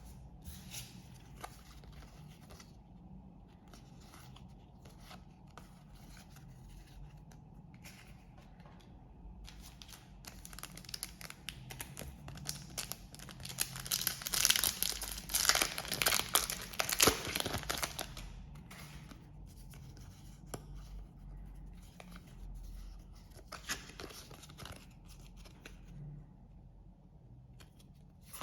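Trading card pack wrappers being handled and torn open: scattered crinkling, with a louder, denser stretch of tearing and rustling about halfway through.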